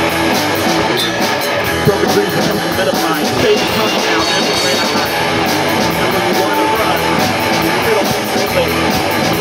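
Live rock band playing a song: two electric guitars, an electric bass and a drum kit keeping a steady beat.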